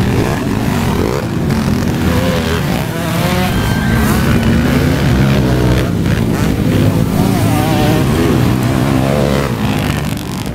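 Several motocross dirt bike engines revving and accelerating as the bikes race past, their pitch rising and falling, with a voice heard over them.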